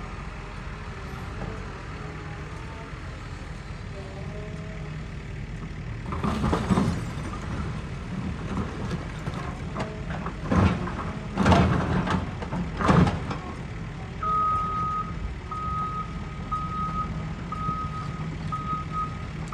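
Hydraulic excavator's diesel engine running steadily while the machine demolishes a building, with four loud crashes of breaking and falling debris through the middle. Over the last third, a backup alarm beeps about once a second.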